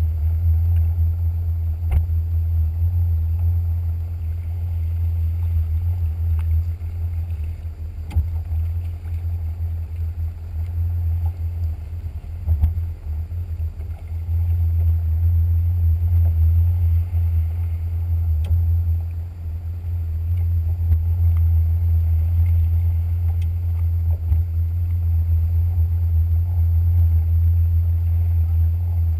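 Jet ski engine running underway, heard as a steady low rumble that dips briefly twice, about twelve and nineteen seconds in.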